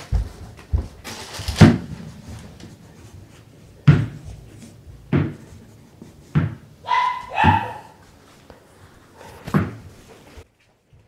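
A dog barking in short, sharp single barks at irregular gaps of about a second or more; one longer, pitched bark comes about seven seconds in.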